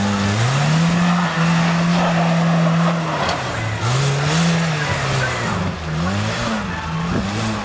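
Off-road SUV's engine revving as it drives through snow and mud. The revs climb just after the start, hold steady for a couple of seconds, then drop and rise again several times in short bursts near the end.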